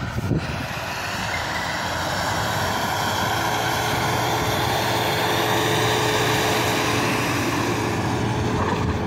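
Off-road 4x4 SUV engine held at high revs under load, getting louder over the first few seconds and then holding steady.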